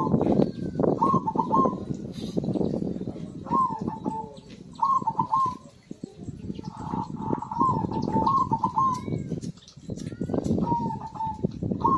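Zebra dove (perkutut) cooing: short warbling phrases of a few notes, repeated every second or two, over a loud low rushing noise.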